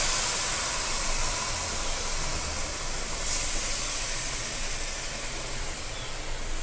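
Water and moringa drumsticks poured into a hot pan of fried coconut-peanut masala, sizzling and hissing steadily and slowly dying down.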